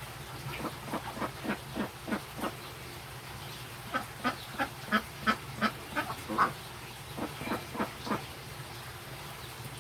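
Ducks quacking in runs of short, repeated calls, about two to three a second, with a pause between the runs.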